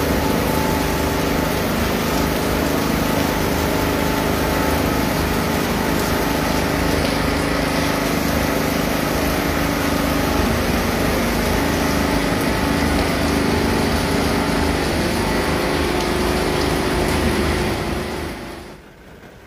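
Steady rain noise with a motor humming steadily underneath it. The sound drops away sharply near the end.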